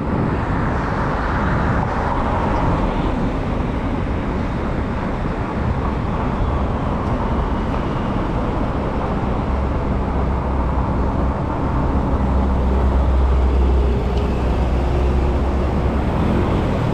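Steady road and traffic noise heard from a moving bicycle on a city street, with cars passing. A deeper rumble swells for a few seconds in the middle.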